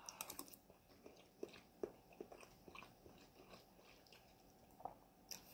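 Faint chewing of a mouthful of chickpeas and rice, with scattered soft clicks and smacks.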